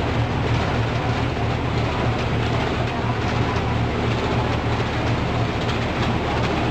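Steady running noise of a fruit packing line: plastic modular-belt conveyors and packing machinery running, with a constant low hum and faint scattered ticks.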